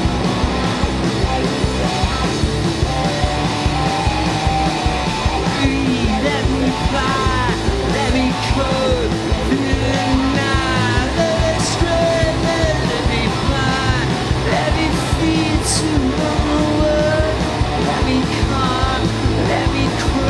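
Live rock band playing at full volume: a drum kit keeps a steady beat under electric guitar and bass guitar, with singing over it.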